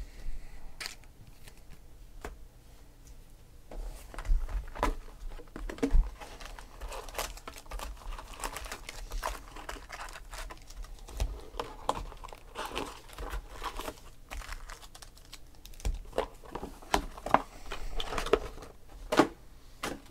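Foil packs of 2016 Panini Donruss Optic football cards crinkling as they are handled and pulled out of an opened cardboard hobby box, with scattered light knocks and rustles of the box.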